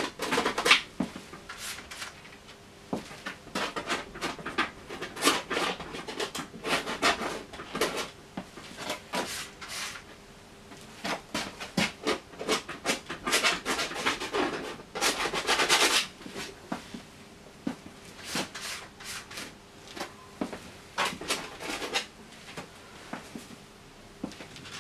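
Palette knife scraping and dabbing thick paint onto a stretched canvas: a run of short, irregular scrapes, with one longer scrape about fifteen seconds in.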